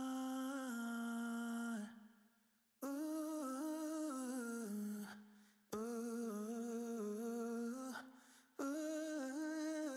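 Background song with a vocal melody held on long, steady notes, in phrases of about two to three seconds with short breaks between them.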